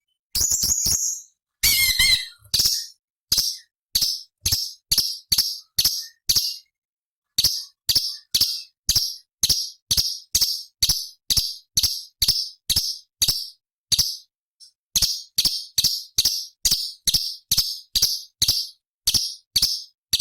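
Cucak cungkok songbird calling in a long run of short, sharp, high-pitched notes, about two a second. A more complex warbled phrase comes about two seconds in, and there are two brief pauses.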